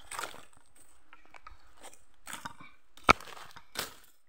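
Footsteps crunching on dry leaf litter and brushing through thick grass and weeds, in irregular steps, with one sharp click about three seconds in.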